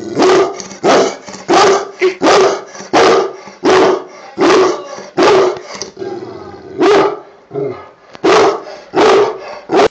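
Large black dog barking repeatedly: about a dozen loud barks, roughly one every two-thirds of a second, with a brief pause partway through.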